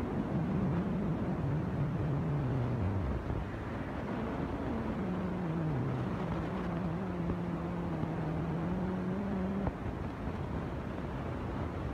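An engine running, its pitch falling and rising, then holding steady before cutting off suddenly near the end.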